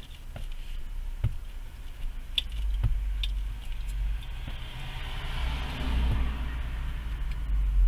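Low, steady rumble of a vehicle idling, heard from inside a truck's cabin. A hiss of passing traffic swells about halfway through, and there are a few faint clicks.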